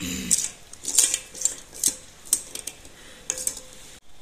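Small plastic claw hair clips clicking and clattering against each other and the table as a hand spreads them out: an irregular run of sharp light ticks.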